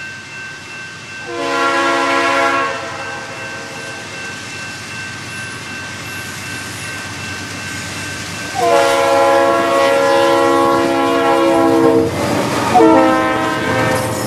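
Norfolk Southern diesel locomotive's K5LA five-chime air horn sounding three blasts: a short one about a second in, a long one starting past the middle, and another beginning near the end. Under it runs the rumble of the approaching coal train, growing heavier as the locomotives come alongside.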